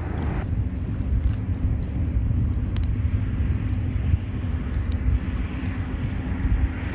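A steady low rumble with a few faint, sharp crackles from a wood fire burning in a fire pit.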